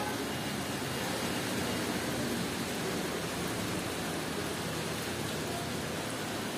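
Steady, even hiss of workshop background noise, with no distinct knocks or tones.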